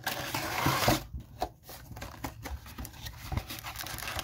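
Cardboard trading-card box being opened by gloved hands. A scraping rustle of the flap being pulled loose lasts about the first second, followed by lighter scrapes and taps of cardboard.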